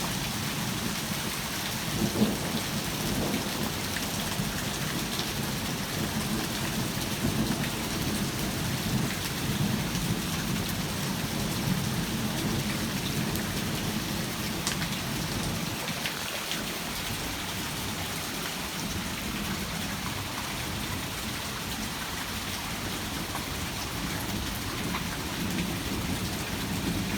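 Heavy rain pouring steadily, with thunder rumbling low underneath throughout and a sharper crack about two seconds in.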